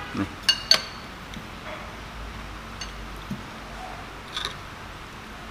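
Spoons and forks clinking against ceramic soup bowls and a glass saucer as people eat: two sharp ringing clinks about half a second in, then a few softer taps.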